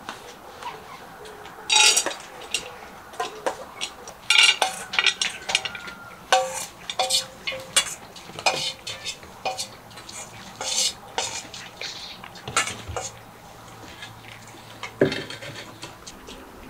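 Stainless steel food bowls clinking and clattering irregularly as a group of cats feeds from them. Some of the sharper knocks leave a short metallic ring.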